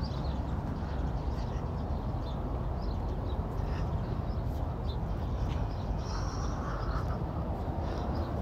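Short bird chirps and calls here and there, with a slightly longer call about two-thirds of the way in, over a steady low rumble.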